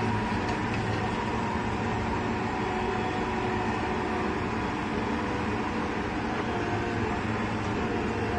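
Case 550 articulated tractor's engine running steadily with a constant drone, pulling a scraper loaded with dirt.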